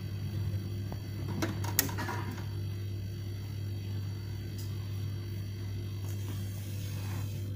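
Steady low electrical hum, with a few sharp clicks about one and a half to two seconds in.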